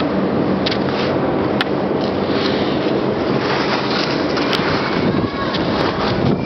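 Skis sliding and scraping over snow during a fast downhill run, with wind rushing over the microphone: a steady, loud hiss.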